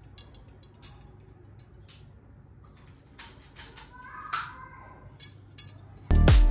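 Light metallic clicks and ticks of steel bicycle spokes knocking against each other and the rim as they are threaded through while lacing a wheel by hand, with one brief scrape a little past four seconds in. Loud background music with a beat starts near the end.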